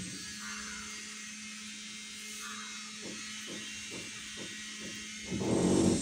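Steady low electrical hum with a few faint clicks past the middle; a louder, fuller sound breaks in near the end.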